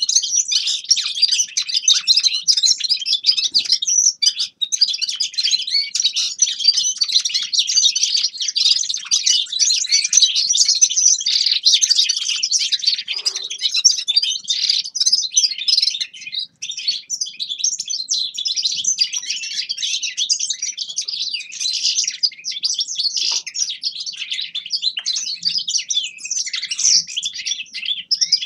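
A finch singing a long, unbroken twittering song of rapid high chirps and trills.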